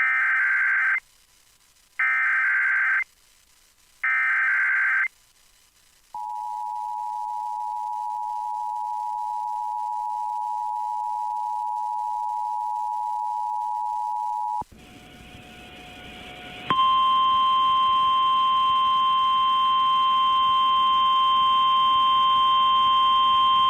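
Emergency Alert System tones off the air: three one-second bursts of the SAME digital header, a second apart, then the two-tone attention signal held steady for about eight seconds. It cuts off into a moment of hiss, and then a louder single steady alert tone starts over the hiss, typical of the NOAA Weather Radio warning alarm tone.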